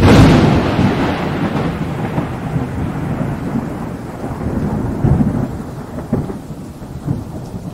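Thunder: a sudden loud clap at the start rolls on into a long rumble that slowly fades, with rain hissing throughout and a few crackles later in the rumble.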